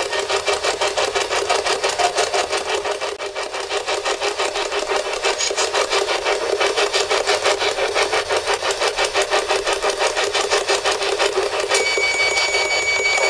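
Spirit box sweeping through radio stations: a fast choppy run of static, about five pulses a second. Near the end a steady high electronic beep joins in.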